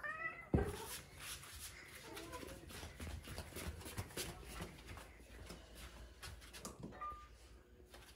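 A cat meows once, its pitch rising and falling, right at the start. About half a second in comes a sharp thump, the loudest sound here, followed by a run of small clicks and knocks.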